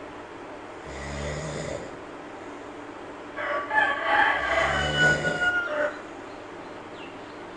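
A sleeping monkey snoring, two slow low snores about four seconds apart. About three seconds in, a louder, long, multi-pitched call lasting some two and a half seconds sounds over the second snore.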